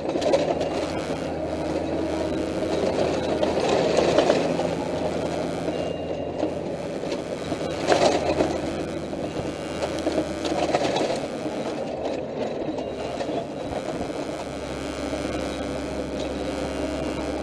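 Military patrol truck's engine running with a steady rumble, heard from the open gun turret, with louder swells about four and eight seconds in.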